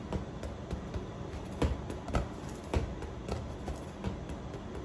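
Small plastic football being slapped by hand and bumping on a tiled floor: scattered light knocks at irregular intervals over a steady low background hum.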